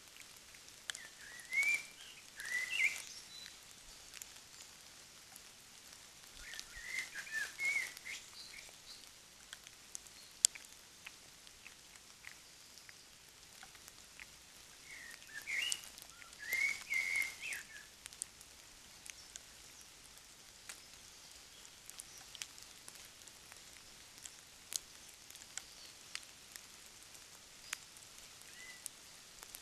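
A bird singing short warbling phrases, three of them several seconds apart, each ending in higher twittering, with faint scattered clicks in between.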